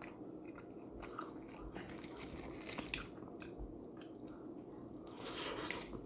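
A person chewing a bite of a Hot Pocket close to the microphone, with soft crunching of the crust and small wet mouth clicks.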